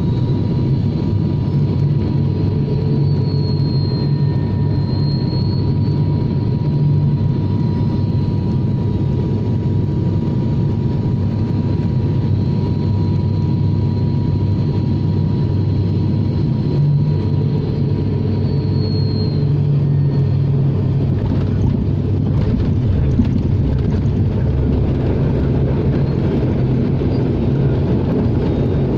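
Cabin noise of an ATR 72 turboprop on landing: the engines and propellers drone steadily with a constant high whine. About three quarters of the way through, the steady tone gives way to a broader rushing sound as the plane rolls along the runway, with a single light knock.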